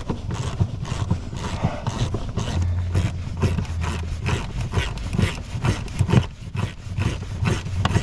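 A plastic trim cover on a car's power seat being pried and worked off: a run of irregular clicks, knocks and scrapes, with a brief low hum about three seconds in.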